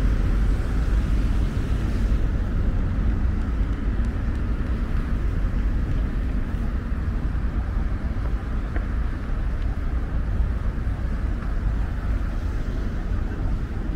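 Steady rumble of street traffic in a city district, slowly fading.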